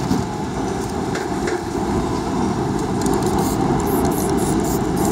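Aerosol spray-paint can being shaken, its mixing ball rattling about four times a second from about three seconds in. Under it, a steady low rumble of street traffic.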